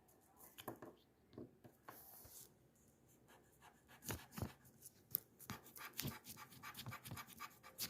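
A small dinosaur-shaped novelty eraser rubbing over pencil lines on paper: faint scratchy strokes, sparse at first and coming more often from about halfway through.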